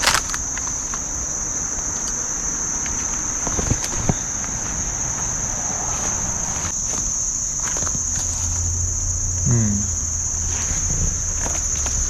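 Insects trilling steadily at one high pitch, with scattered crunches and knocks of someone scrambling down through brush.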